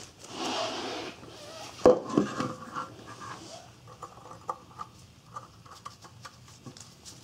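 Plastic packaging crinkling as a donut exhaust gasket is unwrapped. About two seconds in comes a single sharp knock, then light clicks and taps as the gasket is pressed onto the catalytic converter's outlet flange.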